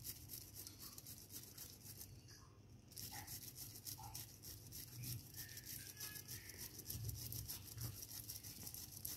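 Block of cheese grated on a stainless steel box grater: quick repeated rasping strokes, with a short pause about two seconds in.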